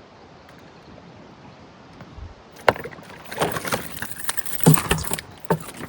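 Knocking and rattling in a small rowing boat as gear is handled. After a quiet start there is a sharp knock, then a run of clattering knocks and rattles that stops just before the end.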